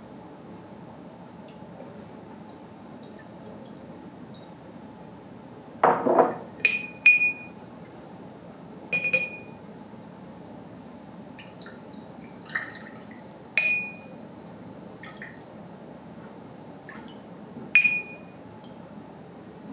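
A small metal cup clinking against the rim of a ridged glass tumbler as lemon juice and syrup are poured in. There is a duller knock about six seconds in, then about five sharp clinks, each with a short ring.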